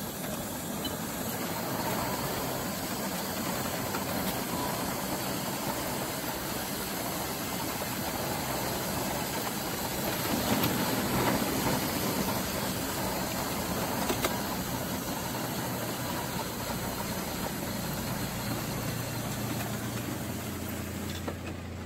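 Two electric power wheelchairs driving over interlocking paving stones: a steady motor and gearbox hum with the wheels rattling on the pavers, and no grinding from the gear reducers, which the owner puts down to their oil. A low hum grows stronger near the end.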